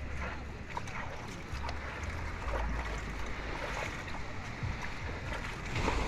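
Wind gusting on the microphone in low rumbling patches over the steady wash of ocean surf.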